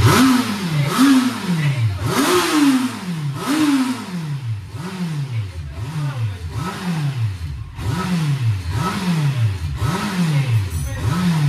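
Motorcycle engine revved in short blips, about once a second, each rev rising quickly in pitch and falling back.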